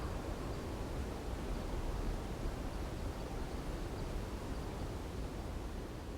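Strong wind blowing, a steady low rumbling roar with a hiss over it, its level wavering slightly.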